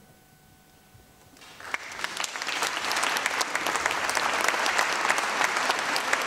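Audience applause. After about a second and a half of near silence it breaks out and quickly swells to steady clapping.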